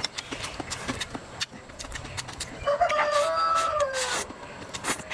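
A rooster crowing once, a single long call about two and a half seconds in that holds and then falls in pitch at the end, over scattered light clicks and taps.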